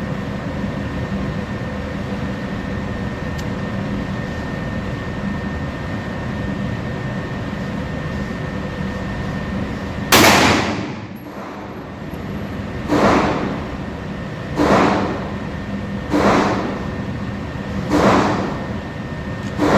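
Five pistol shots at an indoor range, the first about halfway through, then one every 1.5 to 2 seconds. Each crack echoes off the room, over a steady background hum.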